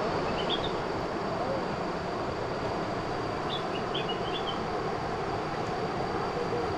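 River water flowing steadily over rocks and shallow rapids, a constant rushing. A bird chirps briefly about half a second in and again a few times around four seconds.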